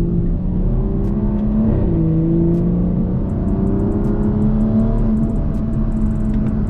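BMW 340i's B58 turbocharged inline-six under acceleration through a resonator-deleted Valvetronic axle-back exhaust. The engine note climbs, drops once at a gearshift just under two seconds in, then climbs again and levels off.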